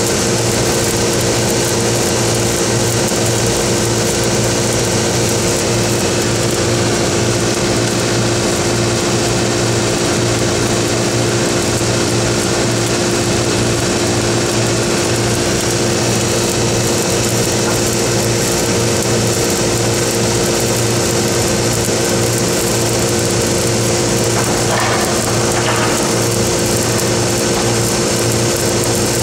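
An engine-driven welding machine drones at a constant pitch under the steady hiss and crackle of a stick-welding arc as cellulosic rod is run uphand on the pipe.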